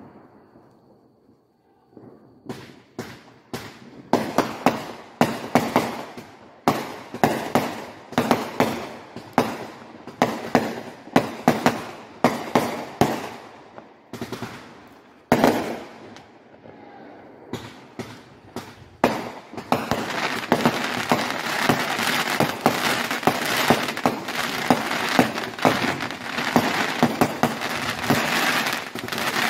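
Fireworks: after a quiet start, a long string of sharp bangs, about two a second, then a dense unbroken crackling from about two-thirds of the way through as a white glitter shell bursts overhead.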